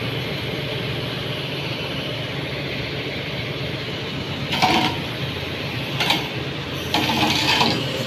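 Excavator's diesel engine running steadily, with three short, louder noises in the second half.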